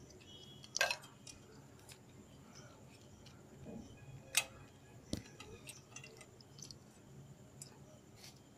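Small plastic wiring connectors being handled and pushed together by hand: a few sharp clicks, the loudest about a second in and again past four seconds, with faint rustling between.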